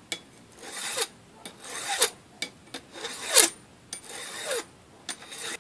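Flat hand file rasping across a lock cylinder, filing the tumblers that stick out flush with the key inserted. About five strokes, roughly one a second, several ending in a short falling squeal.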